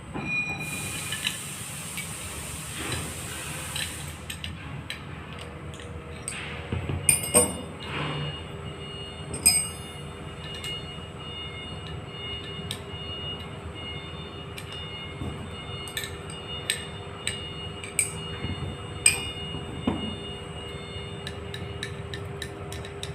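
Two spanners working on a milling tool's knife mount: scattered metal clinks and sharp clicks, a few of them louder knocks, over a steady background hum.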